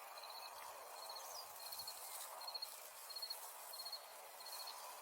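Faint cricket chirping: short trills of a few quick pulses, about seven chirps, evenly spaced over a steady background hiss.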